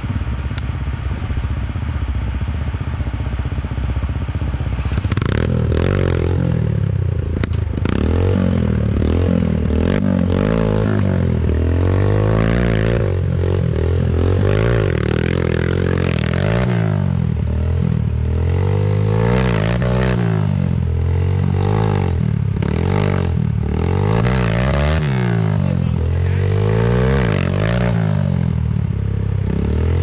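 Dirt-bike engines: a steady idle, then from about five seconds in a bike revving up and down again and again as it struggles up a steep, muddy rut.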